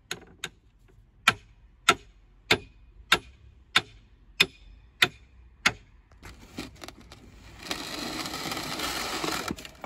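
Hammer blows on long steel sheets, about ten evenly spaced strikes, driving them into the soil beneath a cut earth block. Near the end comes a longer scraping noise as the block is pulled out on the sheets.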